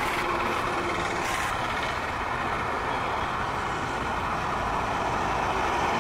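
Busy road traffic, mainly bus and truck engines, running steadily as heavy vehicles pass close by.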